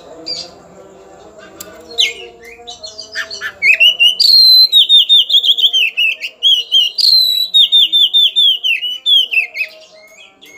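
Oriental magpie-robin (kacer) singing loudly. A few scattered chirps come first, then two long phrases from about four seconds in, each opening on a high note and running into a fast string of falling whistles. It is the agitated territorial song of a bird looking for a rival.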